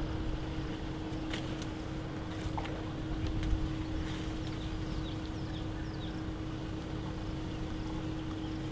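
Steady low rumble under a constant hum, with scattered faint clicks and a few short high chirps about four to five seconds in.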